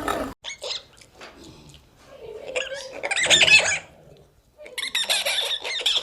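High-pitched animal squeaks and chirps in two bursts, the first about two and a half seconds in and the second about five seconds in.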